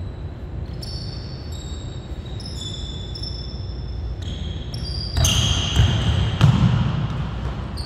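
Basketball dribbled on a hardwood gym floor amid repeated short, high sneaker squeaks. About five seconds in, the squeaks and ball bangs get louder and busier as a player drives to the basket.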